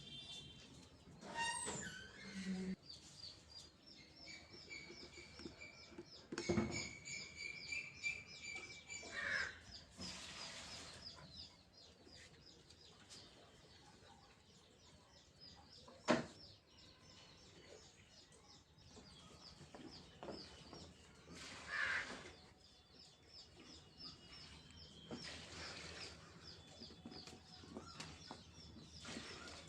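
Small birds chirping in rapid, repeated high notes throughout, with a held high whistle for about five seconds early on and a few sharp knocks, the loudest about sixteen seconds in.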